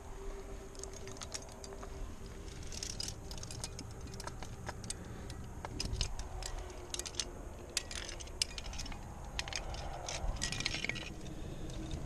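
Metal climbing gear (carabiners, quickdraws and protection racked on the harness) clinking and jangling in irregular clusters as the climber moves up the crack.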